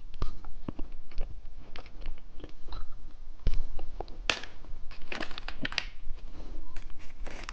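Close-up eating sounds: a hamburger-shaped candy being bitten and chewed with a run of crisp crunching clicks. The crunches are loudest a little past halfway.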